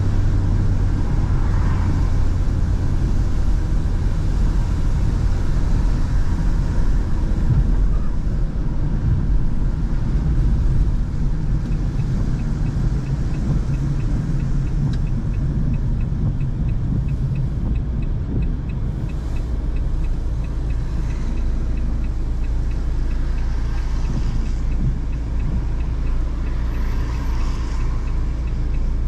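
Low, steady road and engine rumble heard inside a car's cabin while driving on wet streets. A faint regular ticking, about twice a second, starts about halfway through.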